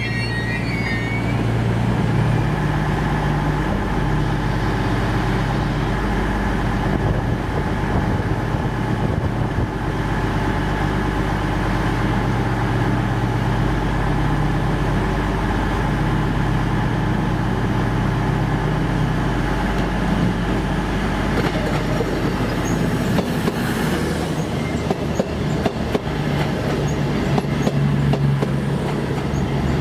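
A passenger train running through the station: a steady low drone with wheel-on-rail noise, turning to irregular knocking in the last several seconds.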